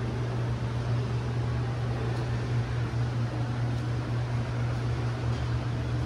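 Steady low machine hum under a constant hiss, with no change in pitch or level.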